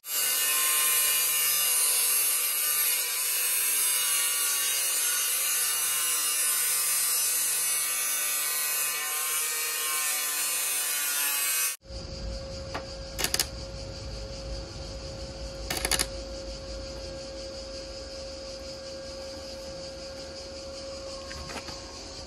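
Power tool running continuously with a high whine for about twelve seconds, then cut off abruptly. After it comes a quieter steady hum with a low rumble, broken by two sharp knocks.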